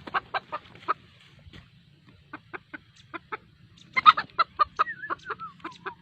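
A bird calling in runs of short, rapid notes, about five a second, with a louder cluster about four seconds in and a few falling notes near the end.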